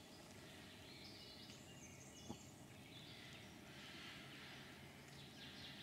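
Near silence: faint outdoor ambience with faint, high bird chirps, and a single soft click a little over two seconds in.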